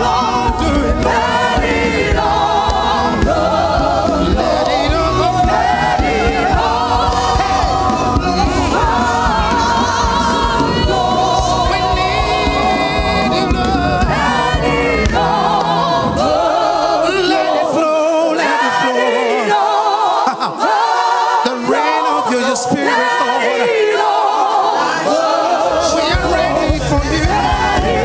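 A gospel choir sings with a band accompaniment. About two-thirds of the way through the bass drops out for several seconds, leaving mostly voices, and it comes back near the end.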